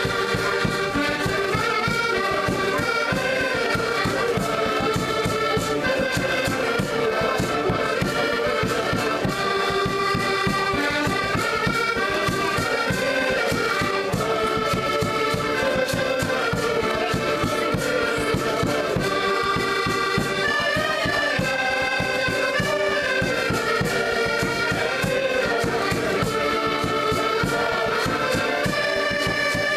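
Ensemble of accordions playing a tune together in chords, with a bass drum keeping a steady beat underneath.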